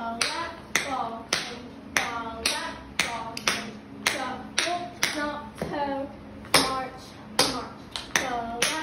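Metal tap shoes striking the floor in slow flap ball changes: crisp taps about two a second at slightly uneven spacing, each with a brief metallic ring.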